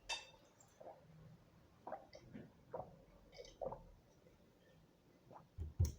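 A child gulping down a drink in one go, with soft swallows about once a second. A low thump comes near the end.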